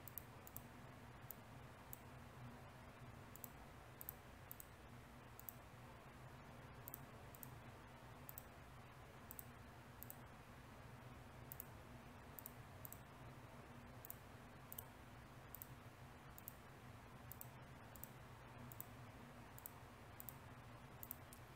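Faint computer mouse clicks at irregular intervals, often in quick pairs, over a low steady hum.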